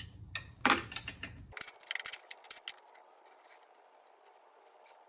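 Clicks and clinks of hand tools and metal parts on a Honda mower engine being opened up to get at the valves: two sharp knocks in the first second, then a quick run of small clicks, then a few faint ticks.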